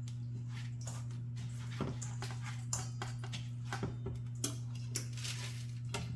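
Light clicks, taps and rustling from hands pressing seasoned bread crumbs onto raw chicken breasts and handling the pieces, over a steady low hum.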